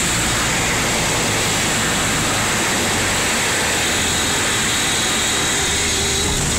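Cabin noise of a Beechcraft Duchess twin piston-engine plane during landing: a steady engine drone under a continuous rush of airflow.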